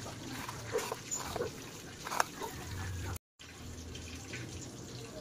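Raw chicken roll being pressed and turned in panko breadcrumbs by hand: a crackly, uneven rustle with small clicks. The sound cuts out briefly about three seconds in.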